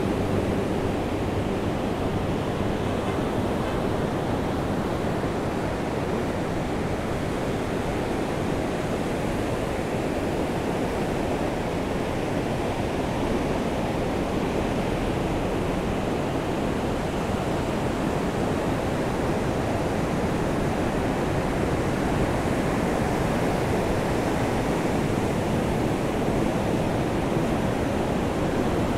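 Steady rushing wash of surf breaking on a sandy beach, mixed with rain, swelling and easing slightly. A low engine hum dies away right at the start.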